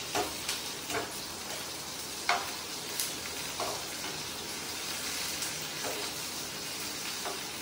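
Onions, whole spices, nuts and green chillies sizzling in hot oil in a frying pan while being stir-fried with a slotted metal spoon. The spoon knocks and scrapes against the pan at uneven moments over the steady sizzle.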